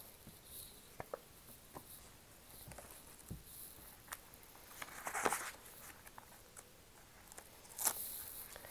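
Faint handling noises: scattered light clicks and taps, with two brief rustles, one about five seconds in and one near the end.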